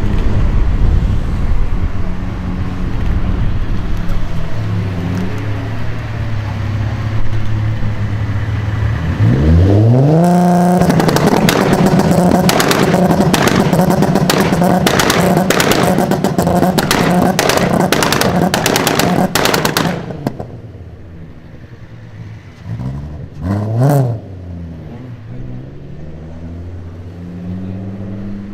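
A VW Golf 3 with a swapped-in Golf 4 V6 engine and tuned exhaust, idling steadily, then revved up about ten seconds in and held high with a rapid, irregular string of loud exhaust pops and bangs. It drops back about twenty seconds in, gets one short blip a few seconds later, and the revs climb again near the end.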